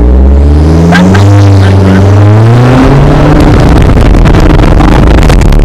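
Car engine accelerating hard, its pitch climbing steadily over the first three seconds and then holding high, under a loud rushing noise throughout.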